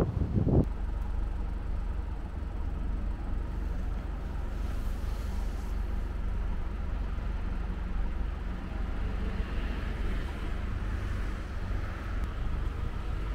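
Street ambience: a steady low rumble of vehicle engines and road traffic, with wind on the microphone. A louder rush in the first half-second.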